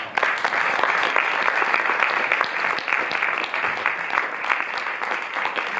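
Audience applauding: dense clapping that breaks out suddenly and holds steady.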